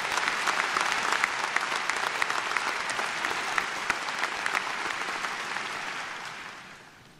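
Audience applauding with dense clapping that dies away near the end.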